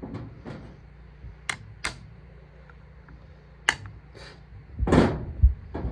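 Sharp metal clicks of hand tools on a baler knotter, three distinct ones, as a cotter pin is spread to lock the new bill hook. About five seconds in comes a longer, duller knock of handling.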